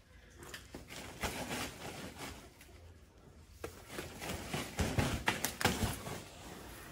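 Plastic bag crinkling and rustling in two spells as it is rubbed over a mule's head and neck, the first about a second in and the second from about four seconds.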